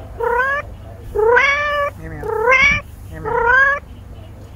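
Domestic tabby cat meowing four times in quick succession, each meow about half a second long and rising in pitch at its start.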